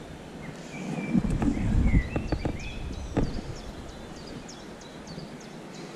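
Close handling noise as the fishing leader is stretched between the hands: a low rustling swell about a second in, with a few sharp clicks up to about three seconds in. Short high bird chirps come and go through the middle.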